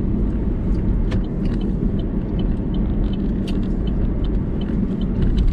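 Steady low rumble of a car, with faint light ticks about three times a second in the second half.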